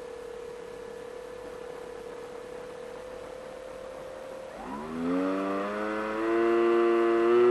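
Motor and propeller of an FPV Raptor model plane: a faint steady whine, then about four and a half seconds in it spools up into a much louder whine that rises in pitch and climbs in steps as the throttle is opened.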